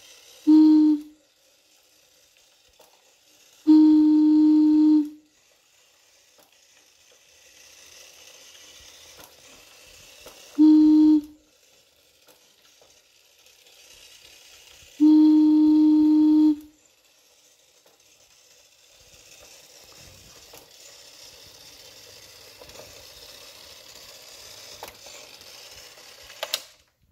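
Sonic whistle for a 1957 Golden Sonic toy spaceship blown four times, short, long, short, long, each blast one steady low note; the blasts are the commands that steer the toy. Between the blasts the toy's battery-powered motor whirs quietly as it drives across the tile floor, and a sharp click comes near the end.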